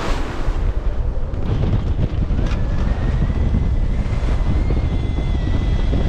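Strong wind buffeting the microphone over the rush of water and spray along a sailboat's hull as it heels, with a splash right at the start. A thin steady whistle joins about two and a half seconds in.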